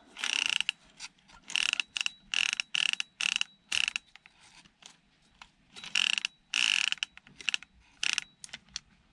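Ratcheting screwdriver clicking in about ten short bursts as screws are undone, with a pause of nearly two seconds around the middle.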